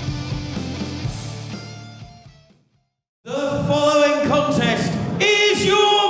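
Rock guitar music fades out over about two and a half seconds. After half a second of silence, loud singing voices start abruptly and carry on.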